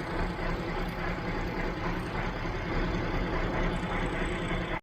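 Massey Ferguson 1105 tractor's diesel engine running steadily.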